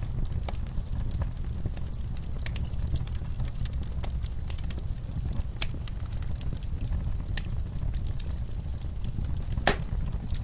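Wood fire in a fireplace crackling, with many scattered small pops over a steady low rumble, and one louder pop near the end.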